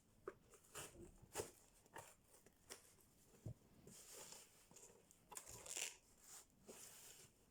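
Faint handling noises of unboxing: scattered light clicks and taps with brief rustling of packaging.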